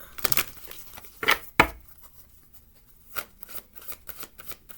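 A deck of reading cards being handled and shuffled: a few sharp taps and slaps in the first two seconds, then a run of quick, soft clicks from about three seconds in.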